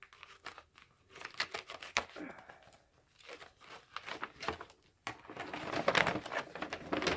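Wrapping paper being crinkled and torn open by hand, in irregular stretches of crackling, louder and busier near the end.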